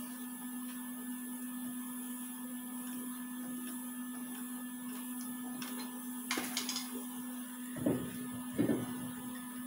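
Steady background hum, with a few light metallic clicks about six and a half seconds in. Near the end come two duller knocks as the cast brake drum is slid back over the freshly adjusted brake shoes onto the hub.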